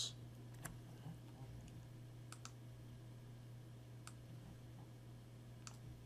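A few faint, scattered clicks of a computer keyboard and mouse as text is entered, over a steady low hum.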